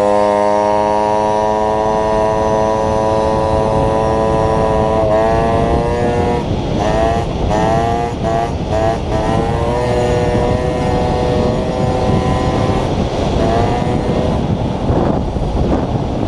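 Small motorcycle engine running at high revs under way, its pitch climbing and then holding. From about five seconds in, the pitch drops and climbs again several times in quick succession, with a heavy rush of wind on the microphone throughout.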